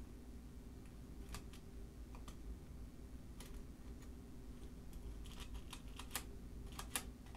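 Faint small metal clicks from the number wheels and carry mechanism of a 1925 Burroughs Class 5 mechanical calculator as a pick works the parts back and forth. The clicks are scattered at first and come closer together near the end. The carry mechanism is being loosened from a jam caused by old, dried oil.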